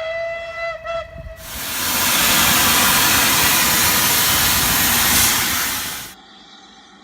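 Steam locomotive whistle sounding a steady note that ends about a second in, followed by a loud hiss of steam blowing off for nearly five seconds that cuts off suddenly.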